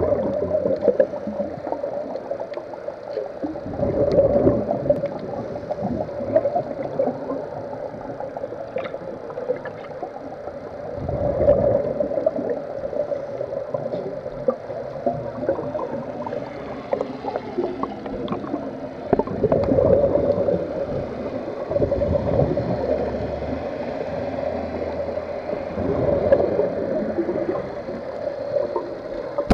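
Scuba regulators underwater, heard through a camera housing: exhaled air bursting out as bubbles in a gurgling surge every few seconds, over a steady muffled hiss.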